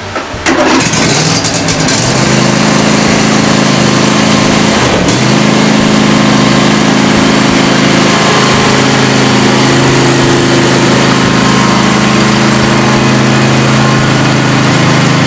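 Freshly tuned-up John Deere LA145 riding mower's Briggs & Stratton twin-cylinder engine starting about half a second in, catching within about a second, then running steadily.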